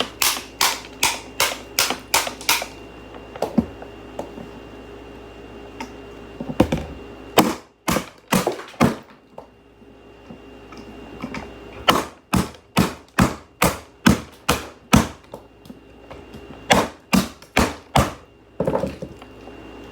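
Rapid sharp knocks or clicks in four bursts of several strokes each, about three to four a second, with short pauses between the bursts.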